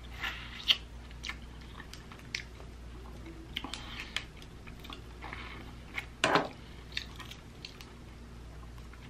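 Close-miked eating of snow crab: chewing and sucking meat from a leg, then the crackle and snap of shell as a snow crab cluster is broken apart by hand, with the loudest crack about six seconds in.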